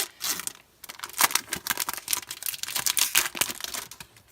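Foil Pokémon booster-pack wrapper being handled and torn open: an irregular run of sharp crinkles and crackles.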